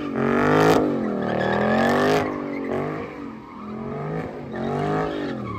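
Car engine revving up and down as the car spins donuts, with its rear tyres spinning and squealing on the asphalt. The pitch rises and falls repeatedly, and there are two sharper flares of tyre noise in the first two seconds.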